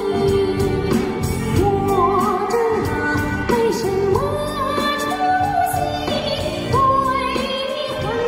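A male singer singing a Mandarin pop song live into a microphone, holding and sliding between notes in a high register, over a full band accompaniment with bass and a steady beat.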